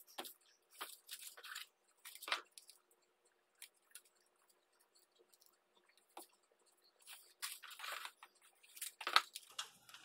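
Aluminum foil tape crinkling and rustling in short, scattered bursts as strips are handled and smoothed down onto cardboard, with a pause of a few seconds midway.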